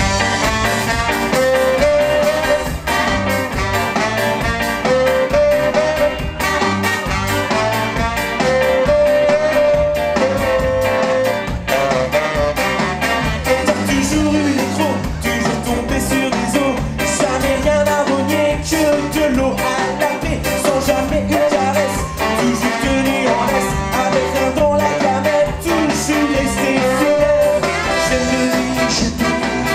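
Ska band playing live: drum kit, bass guitar, electric guitar, trombone and tenor saxophone in a steady upbeat ska rhythm, with singing.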